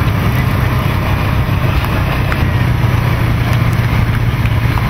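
A motor vehicle's engine running steadily, a constant low hum, with wind noise on the microphone.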